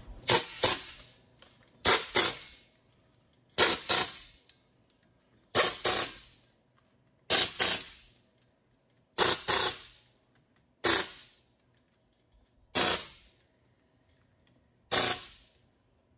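Air-powered wrench run in short trigger bursts, nine of them about two seconds apart, most in quick double pulls, running in the bolts on a truck's oil-filled front wheel hub.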